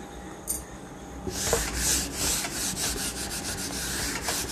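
A brief click, then a whiteboard eraser rubbed quickly back and forth across a whiteboard, wiping off marker writing in fast repeated strokes, starting just over a second in.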